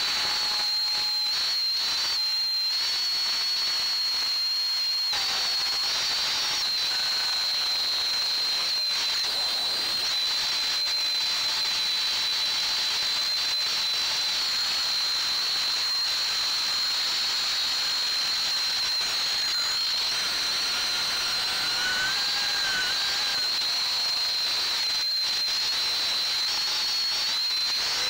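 3D-printed FPV quadcopter's high-KV brushless motors and propellers on a 6S battery in fast flight: a steady high-pitched whine over a rush of air, heard from the quad's own onboard camera. The whine breaks briefly about five seconds in, then holds.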